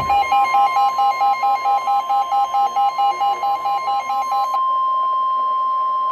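NOAA Weather Radio warning alarm tone: a loud, steady single tone near 1 kHz that cuts off sharply at the end, signalling that an emergency warning message follows. Over it, a pulsing beep repeats about four times a second and stops about four and a half seconds in.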